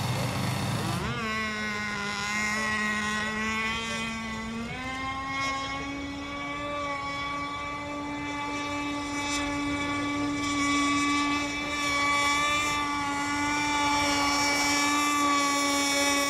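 Radio-controlled racing boat's motor running at speed, a steady whine with many overtones. The pitch rises within the first second, steps up again about five seconds in, and then holds steady.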